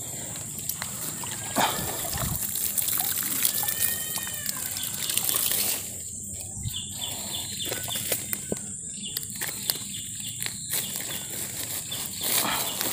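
Hands rustling through grass and handling a woven plastic sack and line while a freshly caught snakehead is put into the sack, with scattered short clicks and crackles. A steady high-pitched drone runs underneath, with a few short chirps.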